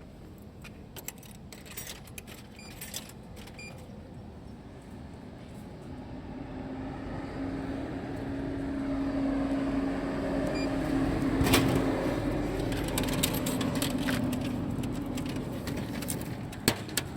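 A motor vehicle running close by, growing louder over several seconds to its loudest about two thirds through, then fading. A few light clicks and jingles come in the first few seconds, and a sharp click comes near the end.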